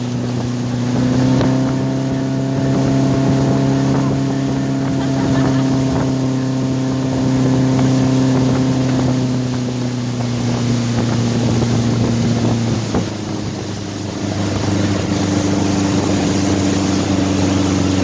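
Motorboat engine running steadily under load while towing a tube rider, over the rush of the wake and wind on the microphone. About thirteen seconds in, the engine note shifts and the level dips briefly before steadying again.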